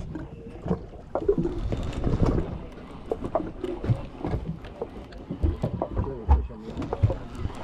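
Irregular low knocks and bumps aboard a small fishing boat at sea, with water and wind noise.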